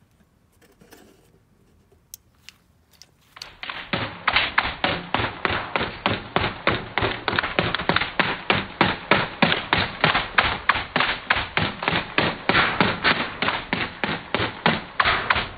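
Game Face GF76 airsoft electric gun firing on full auto at an aluminium drink can, heard as an even string of shots at about four a second. The shots start about three seconds in and carry on without a break.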